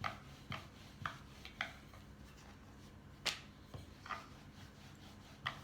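Rolling pin and board making faint, short clicks and knocks as thin dough is rolled out, at uneven intervals of about half a second, with one sharper knock about three seconds in.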